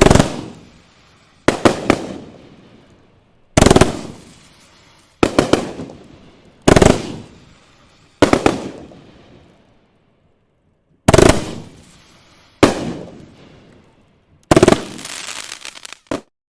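Fireworks bursting overhead: about ten loud booms, roughly one every one and a half seconds, each trailing off. The last burst, near the end, carries a longer crackling tail before the sound cuts off abruptly.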